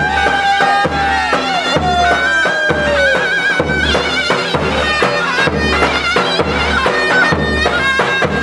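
Turkish folk dance music: the steady beat of a davul bass drum under a shrill, wavering reed-pipe melody, in the style of zurna and davul halay music.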